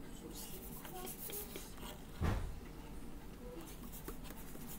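Faint handling sounds of hands dipping hair ends into a foam cup of water: scattered small clicks and rustles, with one dull thump about two seconds in.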